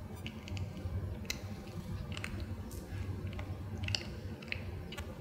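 Kitten chewing a snack: small, irregular mouth clicks and crunches.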